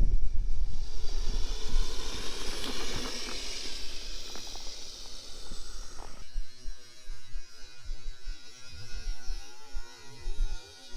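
Electric motor and rubber tracks of a Kyosho Blizzard RC snow vehicle whining as it drives through snow, the pitch wavering with the throttle. About six seconds in the sound changes abruptly to a thinner, wavering whine.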